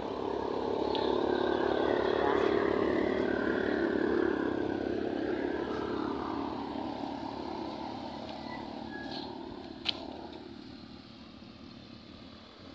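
A motor vehicle passing on the road: its engine and tyre noise swell over the first couple of seconds, then fade away gradually. A single sharp click about ten seconds in.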